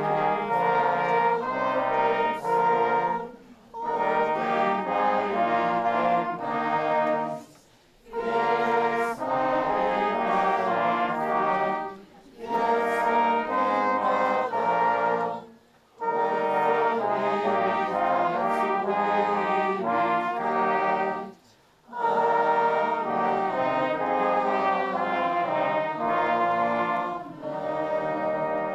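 Small brass ensemble of trumpets, trombone and horns playing a tune in phrases, each broken off by a short breath pause.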